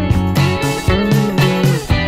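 Background music led by guitar, with a note that bends up and back down about halfway through.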